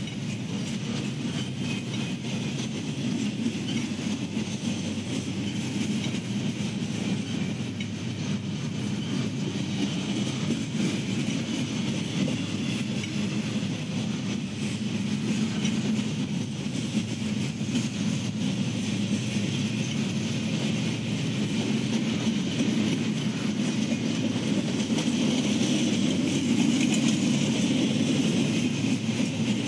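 Freight train cars rolling past at speed: a steady rumble of steel wheels on the rails with rapid clicking over rail joints, growing a little louder near the end.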